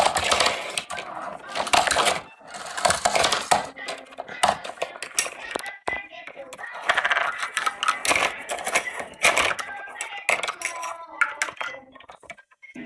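Hard plastic toys clattering and knocking together in dense, irregular runs of clicks as a toy excavator and toy car are worked against a plastic toy truck.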